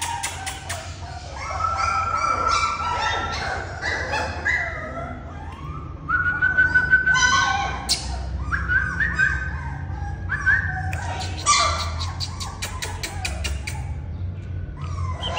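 German Shorthaired Pointer puppies whining and yipping again and again: high, thin whines that slide up and down, broken by short sharp yips.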